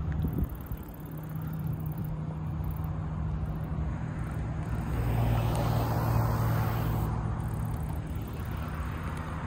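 A road vehicle passing by: its noise swells about halfway through and fades again, over a steady low hum.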